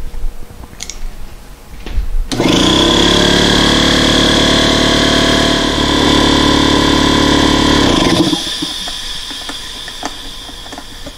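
Small Husky Air Scout portable electric air compressor starting about two seconds in, running steadily for about six seconds, then stopping; a fainter hiss carries on after it stops.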